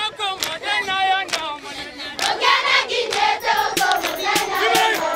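A large group of schoolchildren singing together, with hand claps.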